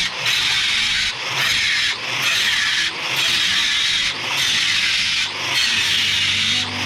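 Rasping strokes of a tool working a metal door-frame profile. There are six strokes, each about a second long, with short breaks between them, as the profile is ground down.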